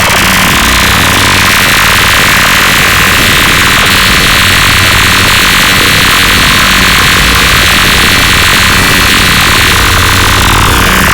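A dark MIDI rendering of a Samsung ringtone, with so many synthesized notes stacked at once that they merge into a loud, steady wall of distorted noise over a low hum.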